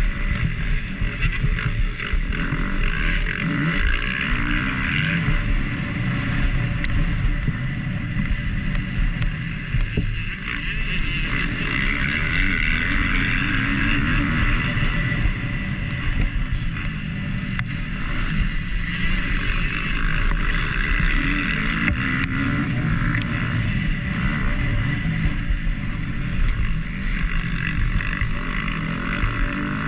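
2019 KTM SX-F 250 four-stroke single-cylinder motocross engine at race pace, revving up and down through the throttle and gears, with a few sharp knocks along the way.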